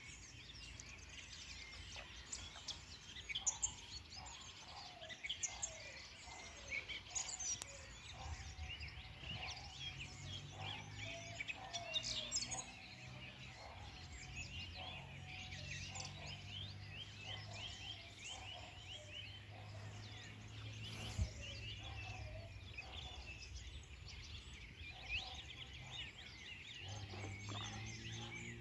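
Several birds chirping and singing, with quick overlapping chirps and a series of lower repeated calls, and a low steady hum underneath.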